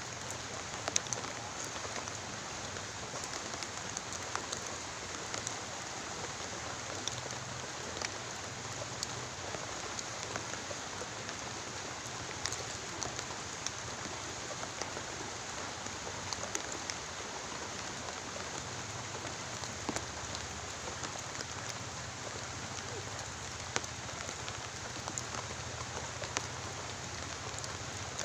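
Steady rain falling, a constant hiss with many individual drops ticking through it.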